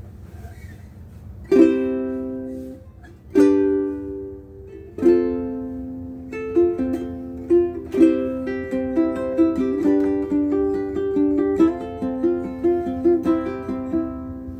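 Ukulele strung with Aquila B-black strings: three chords strummed and left to ring, starting about a second and a half in, then a quicker passage of picked notes and chords.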